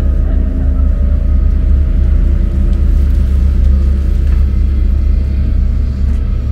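Background music: a loud, steady low droning rumble with faint sustained tones above it, without a beat.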